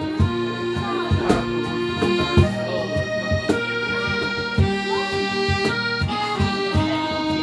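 Piano accordion playing a slow melody of held notes, about one note a second, over strummed acoustic guitar and a cajón beat.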